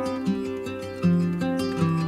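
Background music of plucked string notes.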